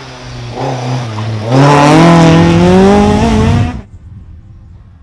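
Ford Escort rally car's engine accelerating hard as it comes past close by, its note climbing steadily as it revs. The sound cuts off abruptly near the end, leaving a faint engine running far off.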